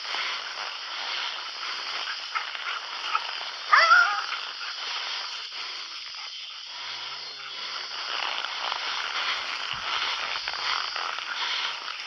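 A steady outdoor hiss with one short, loud call from a cattle dog about four seconds in.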